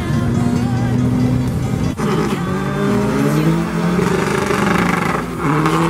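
Drag cars revving hard on the start line, among them a tuned VW Golf V 2.0 TDI. Their engine pitch climbs again and again from about two seconds in, over background music.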